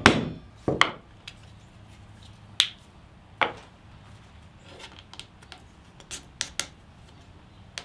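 Hand hole punch being struck with a hammer to punch holes through leather scraps for a stacked leather knife handle: a few sharp, spaced knocks, then lighter clicking taps.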